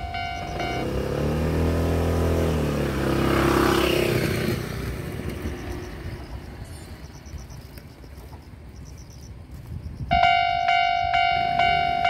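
Japanese level crossing bell ringing in even pulses, stopping under a second in. A road vehicle then passes close by, its engine note falling as it goes, and about ten seconds in the crossing bell starts ringing again.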